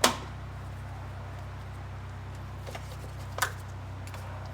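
A sharp plastic click right at the start and a smaller one about three and a half seconds in, as a small plastic engine shield is snapped into place, over a steady low hum.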